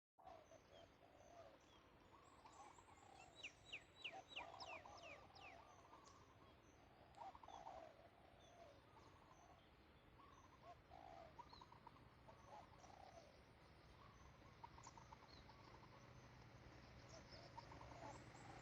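Faint calls of several birds: a quick run of high, downward-sweeping chirps a few seconds in and repeated lower warbling calls throughout, over a low steady rumble that grows slightly louder near the end.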